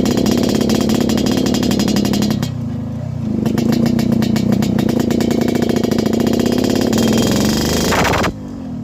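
Yamaha RX King 135 cc single-cylinder two-stroke engine running under way on a ride. It eases off briefly about two and a half seconds in, then the revs climb near the end and cut off suddenly.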